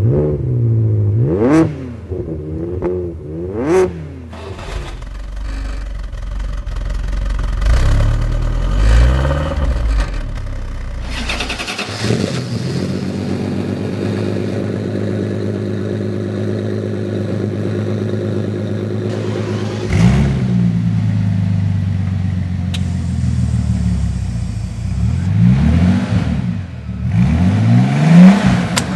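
An engine being revved and allowed to drop back: two sharp revs in the first few seconds, a steady idle through the middle, another rev about two-thirds of the way in, and several quick blips of the throttle near the end.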